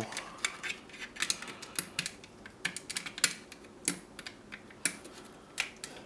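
Irregular sharp plastic clicks and taps as a small plastic controller housing and a dummy AAA battery adapter are handled and fitted together by hand.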